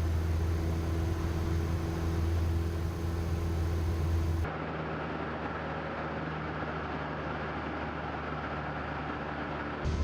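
Cessna 172M's four-cylinder engine and propeller droning steadily at cruise, heard in flight. About four and a half seconds in the sound changes suddenly to a duller drone with the highs cut off, then changes back near the end.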